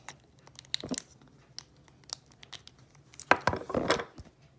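Plastic and cardboard toy packaging being handled: scattered crinkles and clicks, with two short bursts of crackling about a second in and again past the middle.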